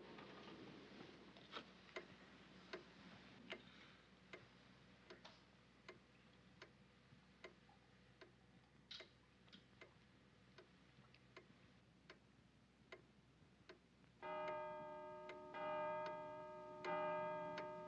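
A clock ticking steadily and slowly, a little faster than once a second. About two-thirds of the way in it begins to strike, with loud ringing chime strokes a second or so apart.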